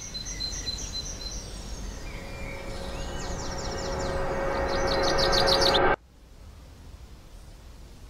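Birds chirping in quick repeated notes and short falling sweeps over a steady outdoor hiss. The hiss swells louder for a few seconds, then cuts off abruptly about six seconds in, leaving a faint steady background.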